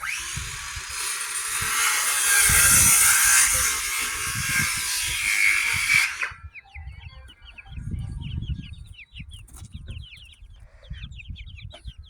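A loud rushing hiss for about six seconds that cuts off suddenly, then chicks peeping rapidly in quick, falling chirps, with low bumps underneath.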